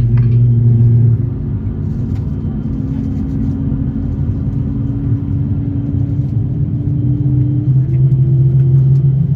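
Steady low hum of an Airbus A350-900 cabin on the ground. A deep drone fades out about a second in and comes back near the end, while a higher tone slowly rises in pitch through the middle.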